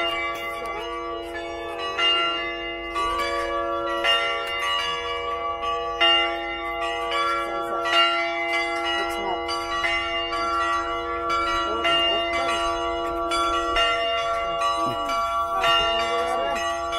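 Church bells ringing: struck again and again, about once a second, with their tones ringing on and overlapping. They are rung as mass is about to begin.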